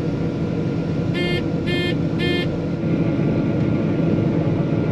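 John Deere 9500 combine running steadily, heard from inside the cab as a constant engine and machinery drone. About a second in come three short electronic beeps, roughly half a second apart.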